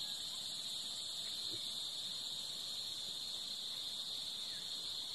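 Steady, high-pitched insect chorus, unbroken and even throughout.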